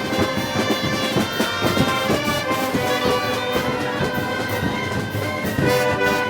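Wind band playing Moros y Cristianos festival music: brass and woodwinds over drum beats, moving into held brass chords near the end.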